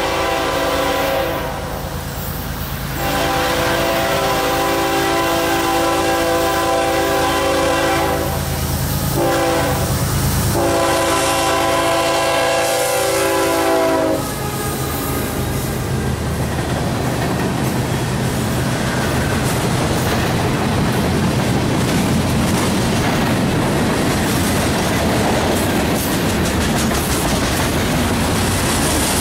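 Diesel freight locomotive's multi-note horn blowing in blasts as the train approaches: the end of one long blast, then a long, a short and a long, the grade-crossing signal. About halfway through the horn stops and the passing locomotive and freight cars take over, a steady heavy rumble with the clickety-clack of wheels on rail joints.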